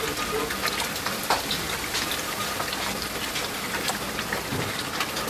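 A large wide pot of water at a rolling boil, bubbling steadily with a dense hiss and many small crackling pops.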